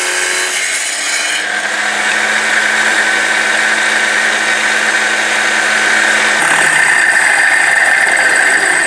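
Electric wet saw with a water-cooled diamond blade running steadily, the blade grinding into a calcite-and-tremolite rock. The motor's pitch shifts slightly about six seconds in.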